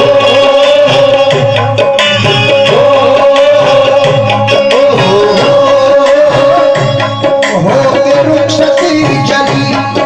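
Live qawwali music: tabla playing a steady rhythm under a held, wavering melody line.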